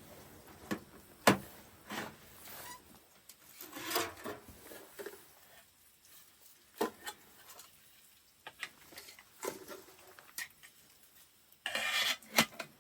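Scattered knocks and clicks of objects being handled, the loudest a little over a second in, between stretches of rubbing and scraping, with a short burst of scraping near the end.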